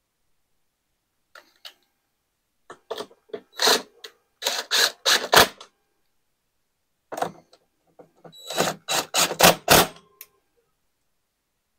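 Bursts of rapid clicks and knocks from a cordless drill-driver and screws as the side panel of a Honda EU3000is generator is screwed back on. The sound comes in two spells, the second ending in a few heavier knocks.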